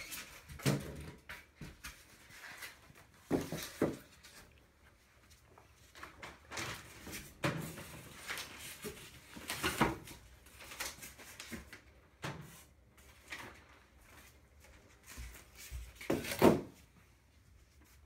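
Packaging being pulled off a new tumble dryer: scattered knocks and thumps against the cabinet mixed with rustling of packing material, the loudest knock about a second and a half before the end.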